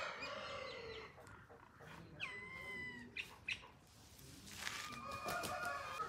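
An Aseel rooster's crow drawing to a close in the first second. Two fainter, shorter pitched calls follow from farther off, about two and five seconds in.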